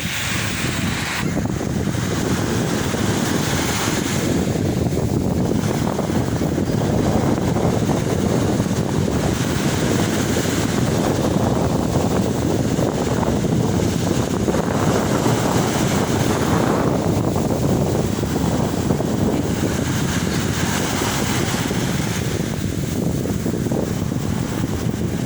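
Sea waves breaking and washing in, their hiss swelling and falling every several seconds. Steady wind buffets the microphone underneath.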